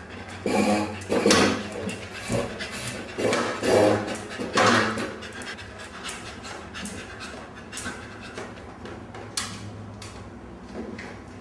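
A dog panting, with several loud breathy bursts in the first five seconds, then fainter, quicker breaths.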